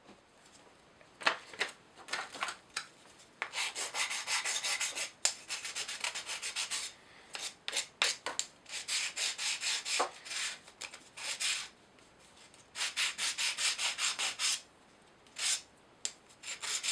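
Quick back-and-forth rubbing strokes on a thin plywood kit part, in several bursts of a second or two with pauses between, several strokes a second.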